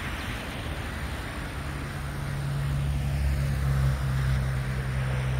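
Road traffic passing: a car's engine and tyre noise, growing louder over the second half.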